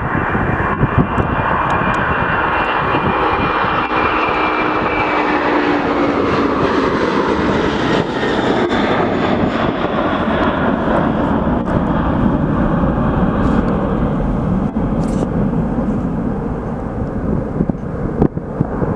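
Boeing 767 jet engines at takeoff power, a loud steady roar with whining tones that fall slightly in pitch over the first few seconds as the airliner passes. The roar then slowly fades and dulls as it climbs away.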